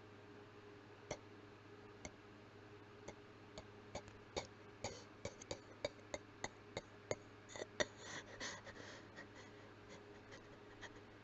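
A person coughing with the mouth closed: short, muffled, sharp coughs, a few spaced out at first, then a quick run of about a dozen in the middle, ending in a breathier spell near the end.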